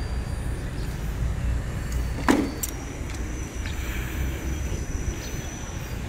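Mitsubishi Lancer's engine idling with a steady low rumble, started remotely through its keyless alarm system. A single sharp knock about two seconds in.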